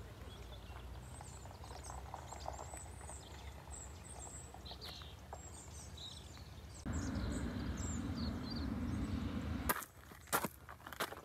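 Small birds chirping and singing in Mediterranean scrub, with a low outdoor rumble underneath. About seven seconds in, a louder steady rushing noise takes over for a few seconds, and near the end there are a few sharp clicks.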